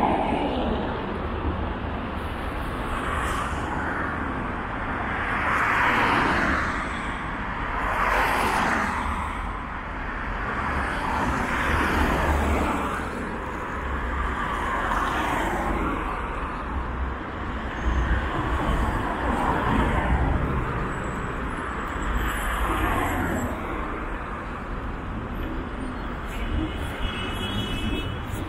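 Street traffic on a wide city avenue: cars and buses passing one after another, their engine and tyre noise swelling and fading every few seconds over a steady low rumble.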